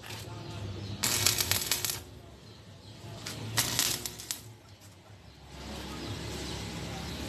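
Stick (shielded metal arc) welding on steel: the electrode's arc crackles and sputters in two short bursts, the first about a second in lasting about a second, the second a little under a second about three and a half seconds in.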